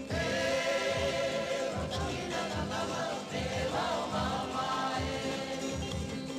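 Soundtrack music with a choir singing held notes.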